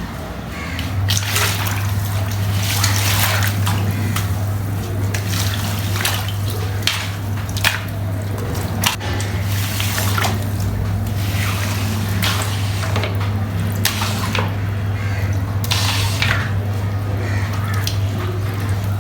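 Water splashing and running in irregular gushes as a heavily soiled carpet is washed, over a steady electric motor hum that starts about a second in.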